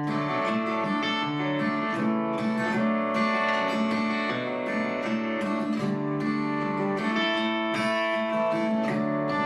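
Acoustic guitar strumming and picking the instrumental intro of a 90s-style country song, with no singing yet.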